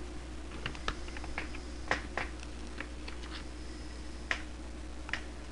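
Light, irregular clicks and taps as hands press and smooth thin wing material flat against a glass table top, about ten in all, the loudest about two and four seconds in.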